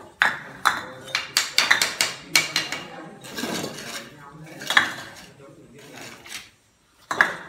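Steel mason's trowel and clay bricks clinking and knocking as bricks are laid in mortar: a quick run of sharp clinks in the first couple of seconds, then a few scattered knocks, one near the end.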